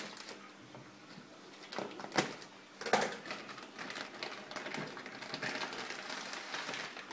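Plastic fish-transport bag crinkling and crackling as it is handled, with irregular crackles throughout and two sharper cracks a little after two and three seconds in.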